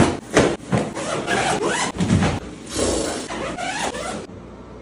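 Hard-shell suitcase being packed and closed: a few knocks and clunks at first, then a few seconds of zipping the case shut.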